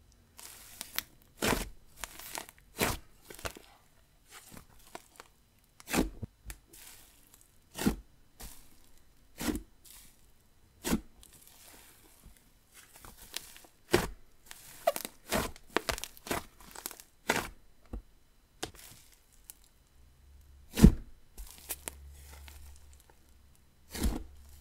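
Thick, airy inflatable slime being stretched, folded and pressed by hand, giving irregular sharp pops and crackles as trapped air is squeezed out of it.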